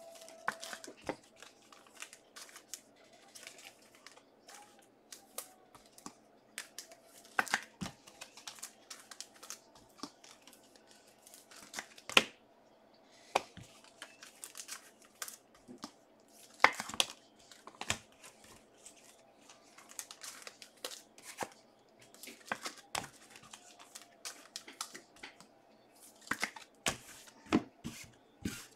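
Trading-card pack wrappers being torn open and the cards handled: scattered short rips, crinkles and clicks, with a faint steady hum underneath.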